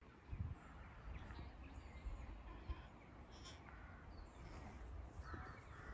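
Outdoor ambience: a low, uneven rumble of wind on the microphone, with a few faint, distant animal calls.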